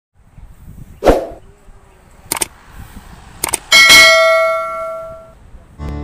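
Metal being struck: a sharp knock about a second in, two lighter taps, then a loud clang near the middle that rings on with a clear tone for about a second and a half before fading.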